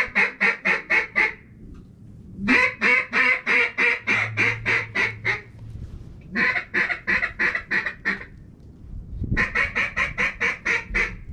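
Duck call blown in mallard-hen quacks: four runs of quacks, about four to five a second, each run several quacks long, with short pauses between them.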